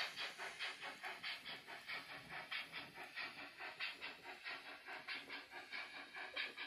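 Steam locomotive chuffing at a steady, even pace of about four to five hissing puffs a second.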